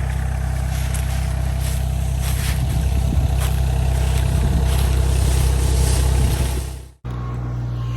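Compact tractor engine running steadily, getting a little louder in the middle, with a few sharp cracks of dry sunflower stalks being broken down. The sound drops out suddenly near the end.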